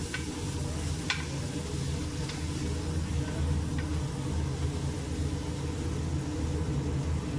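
Minced meat with onion and garlic sizzling faintly in a stainless steel pressure cooker as it is stirred with a wooden spoon, with a couple of light knocks of the spoon on the pot about a second and two seconds in. A steady low hum sits under it all and is the loudest part.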